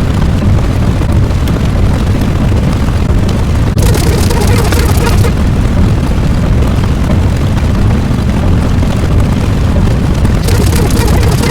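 A loud, continuous rumbling roar, heaviest in the low end, turning hissier for about a second around four seconds in and again near the end.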